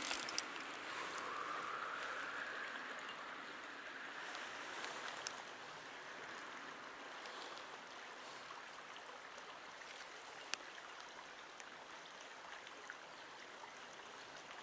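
Stream water running steadily, a constant rushing hiss, with a couple of faint sharp clicks, one about ten seconds in.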